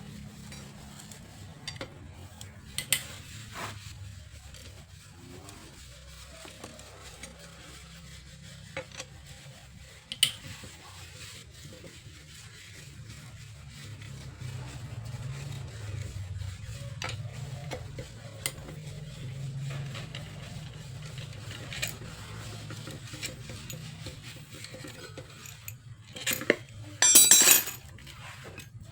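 Alternator parts and hand tools clinking now and then as they are handled, over a low steady hum. Near the end comes a short burst of fast metal clattering, the loudest part.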